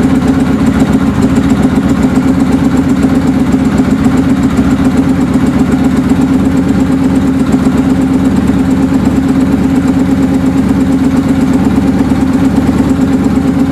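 Suzuki GS550's air-cooled inline-four engine idling steadily, having just caught an idle after the carburettors' idle-circuit air screws were turned in a quarter turn.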